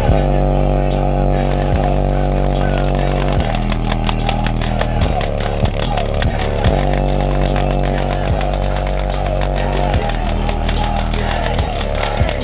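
Cheap 12-inch home-audio subwoofer, rated 100 W, playing free air off an amplifier pushing about 300 W, reproducing a song's bass line as a loud, buzzing, distorted drone. The bass notes change about every second and a half to two seconds.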